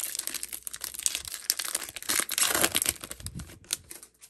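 Foil wrapper of a 2021 NBA Flux trading-card pack being torn open and crinkled, a dense crackle that thins out about three seconds in.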